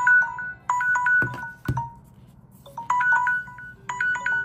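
Smartphone timer alarm tones ringing from several phones whose timers have run out: short chiming phrases repeating about once a second. Two dull thumps of a phone being handled come a little over a second in.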